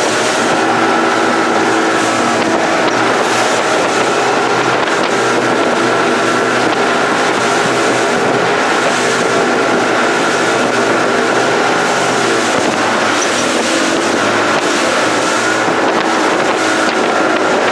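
Boat engine running steadily at cruising speed, under way offshore, with a steady rush of wind and water noise over it.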